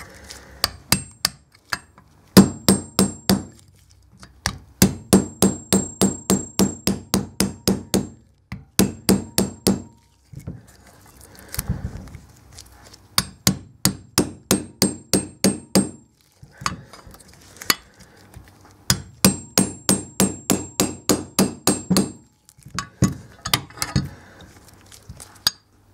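Hammer tapping a steel chisel against the old inner bearing race on a motorcycle's steering stem, driving it off. The sharp metal-on-metal strikes ring and come in quick runs of about three to four a second, with short pauses between runs.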